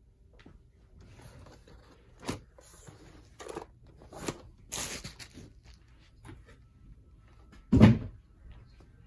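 Cardboard box tray carrying a large RC crawler truck being lifted and shifted, with several short scrapes and knocks of cardboard, then a heavier thump near the end as the box is set down.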